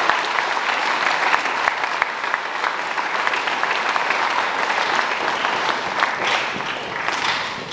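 Assembly audience applauding, a round of many hands clapping together that dies away near the end.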